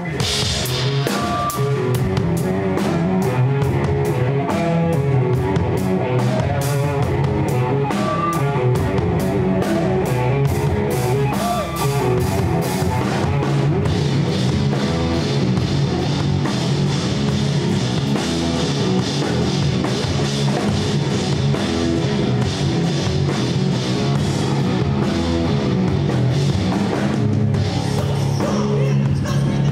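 Rock band playing live: electric guitars, bass and drum kit in an instrumental intro with no vocals. The band comes in together at once, with busy, regular drum strokes that thin out about halfway through.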